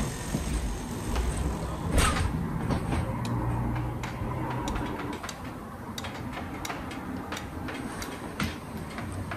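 Scattered clicks and knocks at irregular times, one louder knock about two seconds in, over a low hum that stops about five seconds in.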